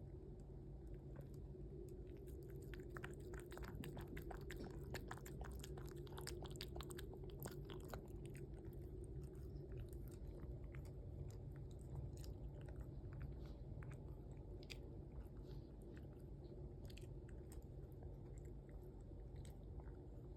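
Toy poodle puppy eating yogurt: rapid small wet mouth clicks, densest from a couple of seconds in to about eight seconds in, then sparser, over a faint steady low hum.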